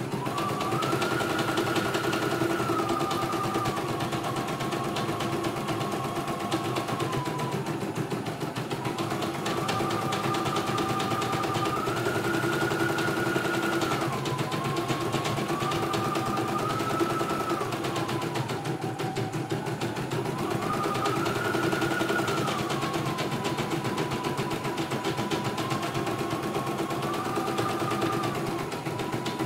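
CNY E900 computerised embroidery machine stitching a design: a rapid, even needle clatter under a motor whine that steps up and down in pitch every few seconds as the machine speeds up and slows.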